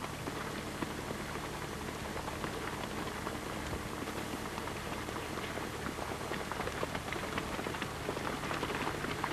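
Hooves of Icelandic horses on a dirt track, a dense, irregular crackly patter, over a steady low hum.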